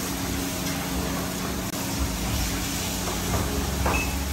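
Steady low mechanical hum of kitchen equipment, with a couple of faint clinks near the end.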